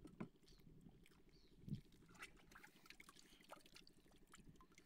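Near silence with faint small water ticks and trickles at the boat's side, and one soft knock about a second and a half in.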